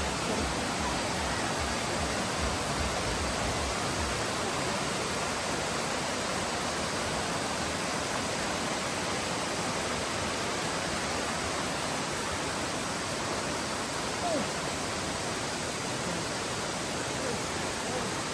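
Steady rushing of a waterfall, an even hiss of falling water without breaks.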